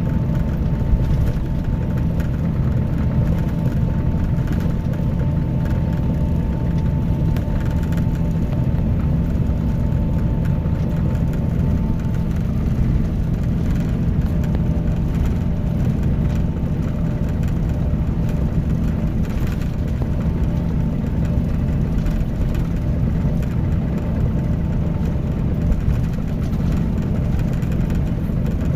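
Scania K310IB coach's engine running steadily, a low even drone with no revving or gear changes. A faint high whine sits over it and fades out about halfway through.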